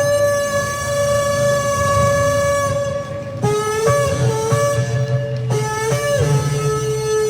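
Shofar (ram's horn) blown: a long steady blast, then a few seconds of short broken notes, then another long blast on a lower pitch.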